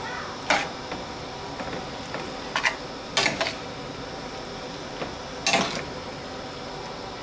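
Metal spoon knocking and scraping against a stainless skillet while fettuccine in cream sauce is stirred: a handful of sharp clacks spaced a second or two apart.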